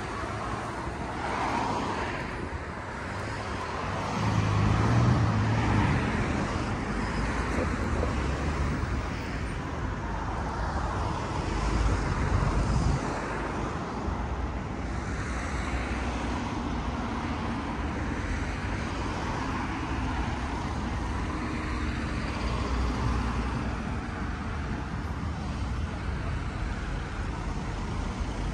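Road traffic: cars driving past, with a louder vehicle passing about four to six seconds in and another briefly around twelve seconds.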